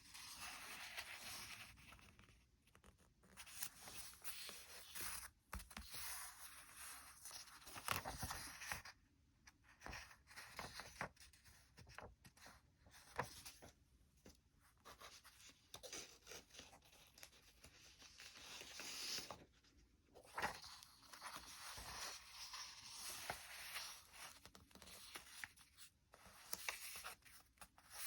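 Paper being folded and creased by hand: irregular soft rustling and scraping of the sheet, with a few sharp crinkles.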